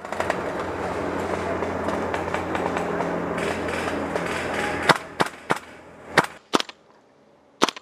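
A dense, steady rushing noise for about five seconds, then about six sharp single cracks of airsoft gun shots, fired at uneven intervals.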